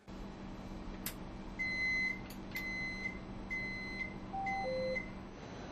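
Hong Kong Light Rail vehicle's cab, with a steady electrical hum and a sharp click about a second in. Then come four evenly spaced beeps about a second apart, a door-closing warning, and near the end a two-note falling chime.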